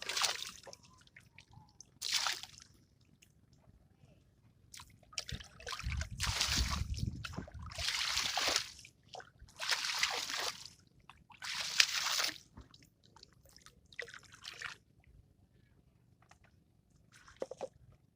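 Water splashing and sloshing in a string of short bursts, about one every two seconds.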